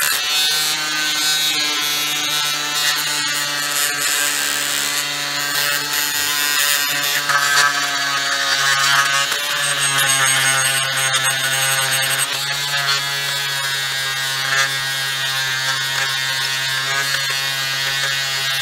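Cordless oscillating multi-tool running steadily with a rubber-covered polishing finger pressed against an aluminum motorcycle cylinder head, working in metal polish. It makes a constant buzz whose pitch drops slightly about halfway through.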